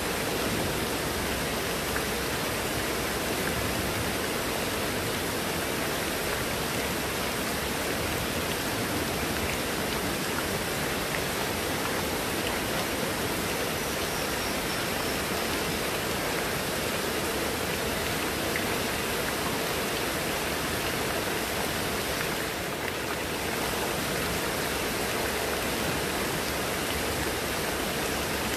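Heavy rain falling steadily on leaves and wet paving, with runoff pouring off a roof edge.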